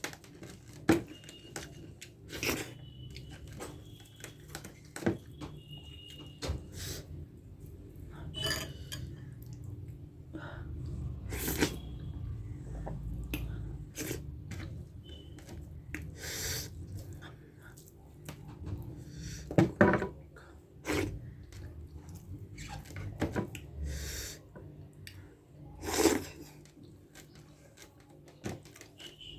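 Close-up eating sounds: chewing and mouth noises over a meal of dhido and gundruk soup, with sharp clicks and clinks of dishes scattered throughout, the loudest a pair of clicks about twenty seconds in.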